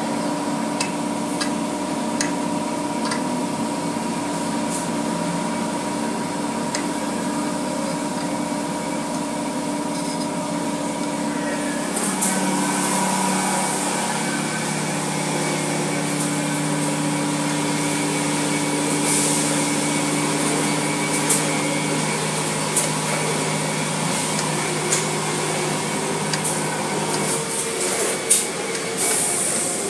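Automatic tunnel car wash machinery running, heard through a viewing window: a steady hum of motors and pumps under water spray. About twelve seconds in, a louder hiss of spray joins, and a few sharp ticks come near the end.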